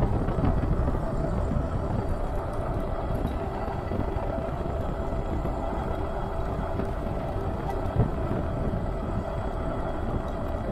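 Super73 S2 electric bike under way: steady wind rumble on the chest-mounted action camera's microphone, with tyre and road noise and a faint steady whine. A single short knock comes about eight seconds in.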